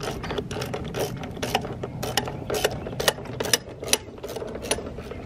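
Ratchet wrench clicking in short strokes, about two clicks a second, as it snugs down the bolt holding a lawnmower's front wheel on its axle.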